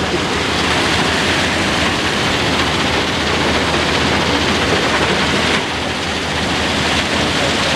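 Steady rushing noise of the fast, silt-laden Seti River below, with a low steady hum underneath.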